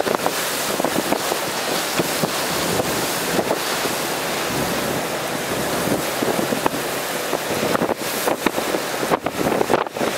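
Hurricane wind and driving rain: a steady, loud rush with gusts buffeting the microphone.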